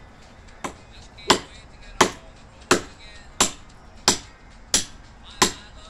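Machete chopping into the base of a wooden pole for firewood: eight sharp strikes, one about every two-thirds of a second, the first lighter than the rest.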